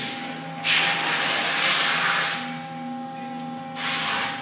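Blowout preventer being function-tested, its rams closing on drill pipe: loud hissing in two spells, the first starting under a second in and the second near the end, over a steady machine hum.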